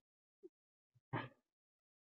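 Near silence, broken by one short, faint sound a little over a second in.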